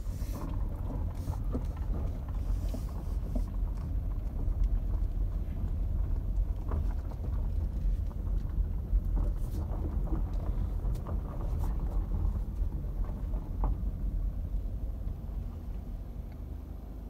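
Car rolling slowly over a dirt driveway, heard from inside the cabin: a steady low rumble of engine and tyres with scattered small clicks, easing off a little near the end.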